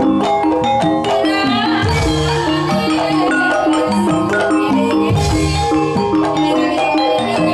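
Banyumasan calung ensemble playing: bamboo calung xylophones sound a quick run of interlocking melody notes, with kendang drum strokes and struck pot gongs underneath.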